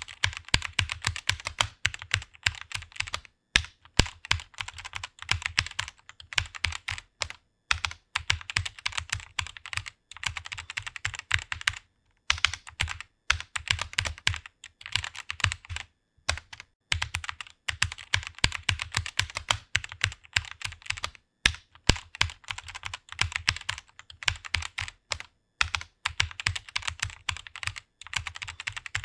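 Computer keyboard being typed on at speed: rapid runs of key clicks broken by short pauses every few seconds.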